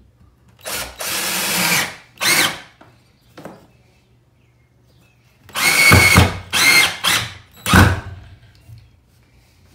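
Cordless drill driving screws through a brass shower valve's mounting tab into wooden blocking, the motor whining up with each squeeze of the trigger. First comes one run of about a second and a half and a short follow-up burst, then after a pause four quick bursts as the screw is seated.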